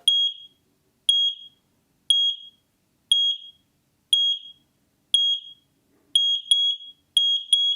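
X-Sense XP01W smoke and carbon monoxide alarm's buzzer sounding short, high-pitched beeps about once a second, measured at about 84 decibels. From about six seconds in, a second interconnected unit joins out of step, so the beeps come in pairs.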